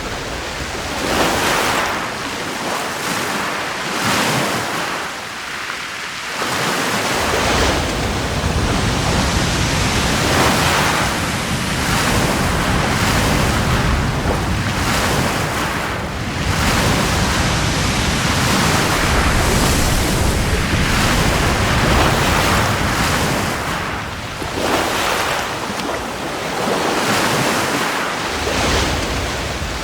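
Ocean surf: waves rushing and breaking in a continuous wash that swells and eases every few seconds. A deep rumble joins about seven seconds in.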